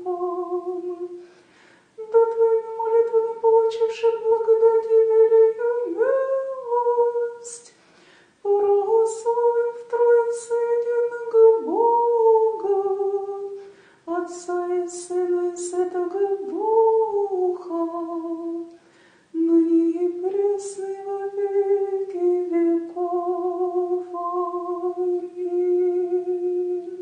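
A woman's solo voice singing an Orthodox prayer in Church Slavonic, unaccompanied, in slow held phrases with short breaks between them. These are the prayer's closing lines, ending in 'Amen'.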